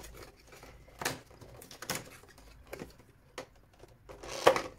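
Hands prying open a cardboard advent calendar door and handling the packaging inside: irregular short clicks, scrapes and rustles, with the loudest rustle near the end.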